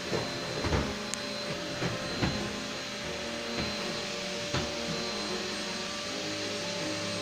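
Vacuum cleaner running steadily with a constant high whine, with a few short knocks and bumps in the first half, the loudest near the start and around two seconds in.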